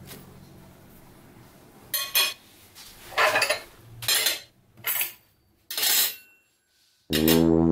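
Table knife scraping and clinking against a ceramic plate while cutting flaky börek, about five short clatters in a row. Background music with guitar comes in near the end.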